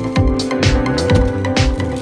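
Electronic background music with a steady kick-drum beat, about two beats a second, over held synth tones.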